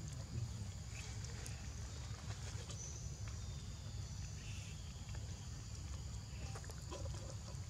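Outdoor ambience: a steady high insect drone over a low rumble, with faint scattered clicks and rustles.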